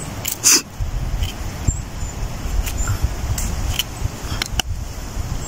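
Small knife scraping and trimming dirt off a freshly picked mushroom's stem, with scattered light clicks and a sharper click about half a second in, over a steady low rumble.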